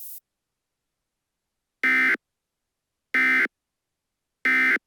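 Emergency Alert System end-of-message data signal: three short, identical bursts of buzzing digital tones, about a third of a second each and a little over a second apart, marking the end of the alert.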